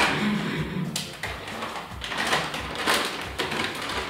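Plastic candy bag crinkling and rustling as it is handled, in several short bursts.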